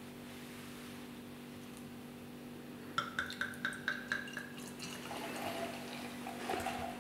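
Beer being poured from a glass bottle into a tulip glass. About three seconds in comes a quick run of glugs from the bottle neck, about six a second, then the softer splash of beer filling the glass.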